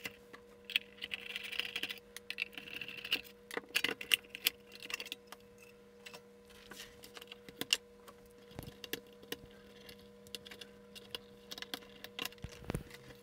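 Small metal shielding box being handled on a workbench and its cover screws undone with a screwdriver: scattered light metallic clicks and taps, with a short scrape in the first few seconds.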